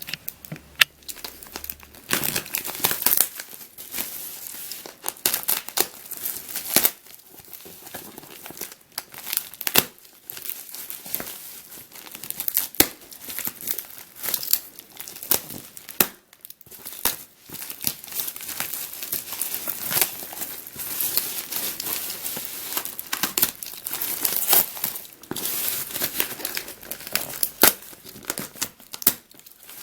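Parcel packaging being torn open and crumpled by hand: dense, irregular crinkling with sharp snaps and tearing.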